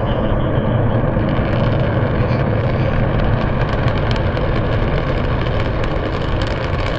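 Distant Antares rocket launch failure: a loud, steady deep rumble from the rocket and its explosion at the pad, with crackling coming in about a second and a half in.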